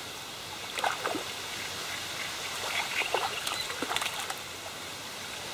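A hooked fish splashing at the water surface as it is played on a float rod: several short splashes over a steady hiss.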